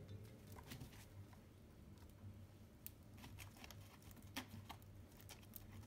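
Near silence with faint, scattered taps and scratches from a kitten pawing a spring-mounted toy mouse and clawing at a corrugated cardboard scratcher.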